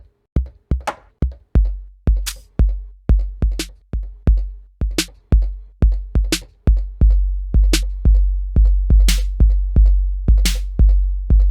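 Drum-machine one-shots from a custom Maschine pad group, triggered one after another a few times a second: long low 808 bass notes under sharp hi-hat, clap and cymbal-like hits.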